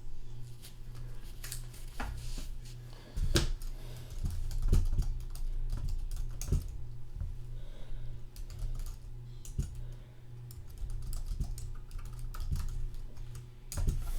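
Typing on a computer keyboard: irregular bursts of key clicks, as a message is typed out.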